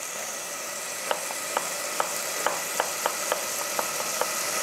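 A chef's knife chopping onion on a wooden cutting board: about a dozen quick, sharp knife strikes starting about a second in. Under them, pancetta sizzles steadily as it fries in olive oil.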